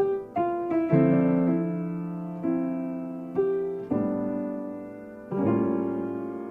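Background music: slow piano chords, each struck and left to fade, several in turn.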